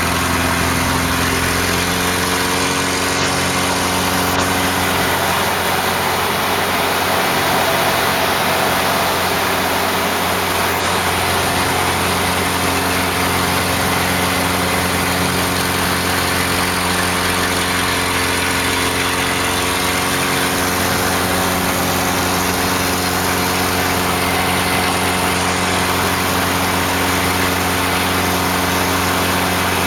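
Laser 230 aerobatic monoplane's piston engine and propeller, heard on board, droning steadily in flight over rushing air noise. The engine note shifts slightly in pitch now and then through the manoeuvres.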